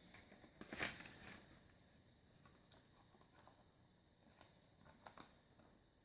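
Faint handling of a Samsung Galaxy S4's plastic back cover being fitted: a brief rustle about a second in, then a few light clicks as it is pressed into place.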